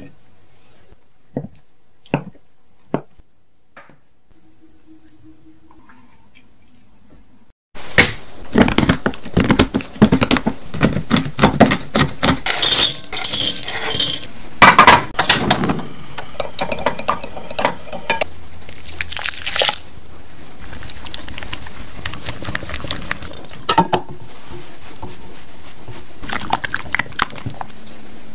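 A chef's knife slicing through a rolled omelette onto a wooden cutting board, three crisp cuts. About eight seconds in, dense clicking and crackling starts as chopped chocolate is handled and tipped into a bowl. It eases into a softer, steadier sound of melted chocolate being stirred.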